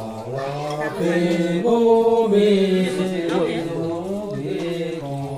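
Voices chanting in long held tones that step from pitch to pitch.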